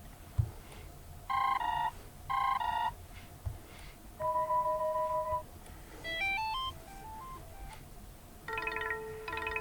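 Built-in ringtones of a Blackview BV6600E phone previewed in turn through its speaker: short electronic chimes and melodies, each lasting about a second, with the tune changing every second or two.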